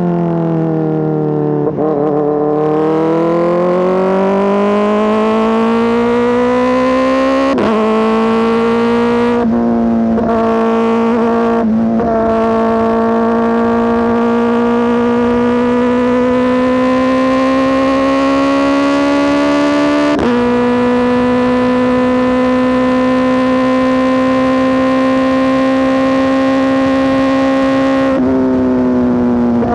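Kawasaki ZX-4RR's 399 cc inline-four running loud through an SC Project S1 exhaust under way. The engine note sags about two seconds in, then climbs steadily. Brief breaks follow near 7, 9, 12, 20 and 28 seconds, gear changes where the pitch steps. Between them it holds a high, steady note.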